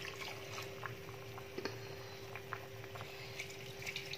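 Turmeric coconut-milk sauce simmering in a frying pan, with soft bubbling and scattered small pops, as thick coconut milk is poured in at the start. A steady faint hum runs underneath.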